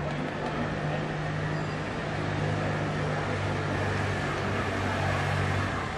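An engine running with a steady low hum over a wash of street noise. The hum grows stronger about two seconds in and drops away just before the end.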